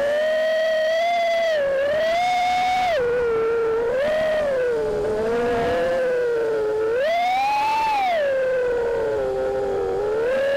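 Racing quadcopter's brushless motors (T-Motor F60 2207 2200KV) whining, the pitch rising and falling smoothly as the throttle is worked in flight.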